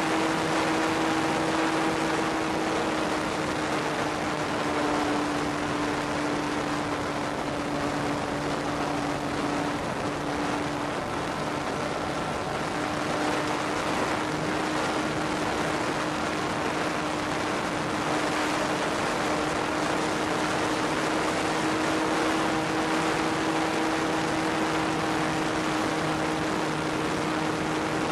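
Radio-controlled Ju-87B Stuka model heard from its onboard camera in flight at full throttle: the motor and propeller hold a steady pitch, sagging slightly for a few seconds and coming back up, over a constant rush of air noise.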